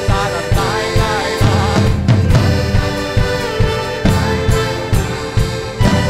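Live band playing: accordion and guitars over drums keeping a steady, quick beat.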